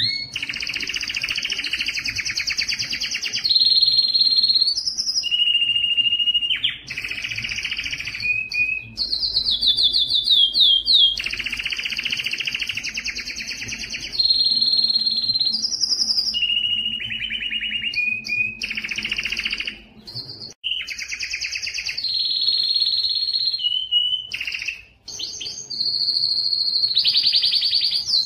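Male domestic canary singing a continuous breeding-season song: fast trills and rolls alternating with steady whistled notes, the phrase changing every second or two, with brief pauses about twenty and twenty-five seconds in.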